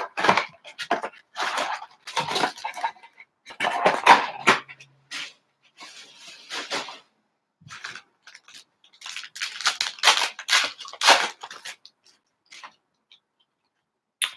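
Cardboard trading-card blaster box being torn open and its foil card packs handled, with irregular crinkling and rustling; a dense run of crinkling between about nine and twelve seconds in as a foil pack wrapper is opened.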